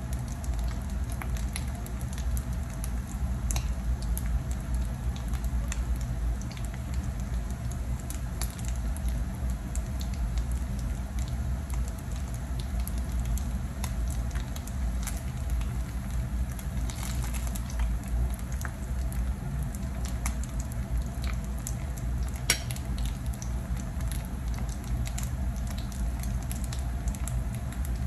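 Ground-beef and egg patties (tortang giniling) sizzling and crackling steadily in shallow oil in a frying pan, over a low rumble. There is one sharp click about three-quarters of the way through.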